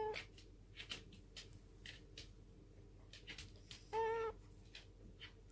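Domestic cat giving one short, level meow about four seconds in, asking to be fed. The tail of a previous meow cuts off right at the start, and faint clicks fall in between.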